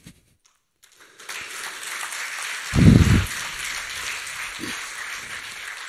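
Audience applauding, the clapping building up about a second in and holding steady, with one short, louder low burst about halfway through.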